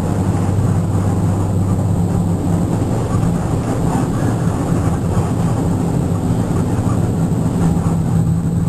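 Engine drone and road noise heard from inside a vehicle moving along a highway: a steady low hum over a constant rush.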